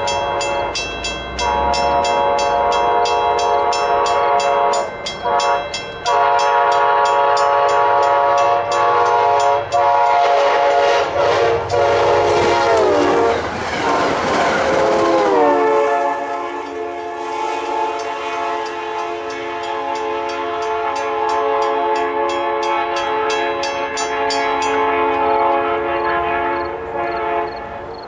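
Passenger train sounding its air horn in long blasts as it approaches and passes, the horn dropping in pitch as the train goes by and then fading away. The rush and clatter of the coaches over the rails is loudest while the train is alongside.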